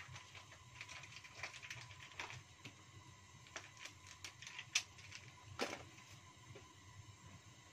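Coconut-milk curry broth simmering in a wok, with irregular small pops and clicks from bursting bubbles and a couple of louder pops past the middle.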